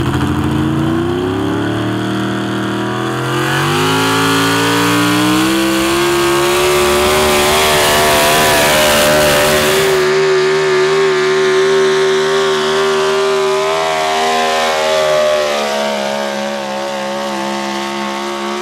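Pro stock 4x4 pulling truck's engine at full throttle under load while dragging a weight-transfer sled. The revs climb over the first several seconds, hold high through the middle of the pull, then ease down slightly near the end.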